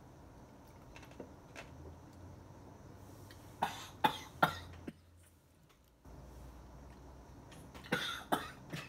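A woman coughing in two short fits of three sharp coughs each, about four seconds apart, after a sip of a strong bourbon cocktail.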